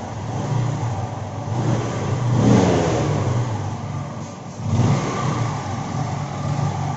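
Freshly rebuilt Bajaj Pulsar 135's single-cylinder four-stroke engine running. It is revved twice, about two and a half seconds in and again near five seconds, each time rising and falling back.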